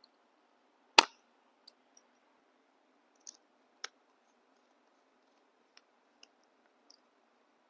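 Scattered sharp clicks and light taps of small tools and parts being handled on an opened laptop: one loud click about a second in, then fainter ticks every half second to a second.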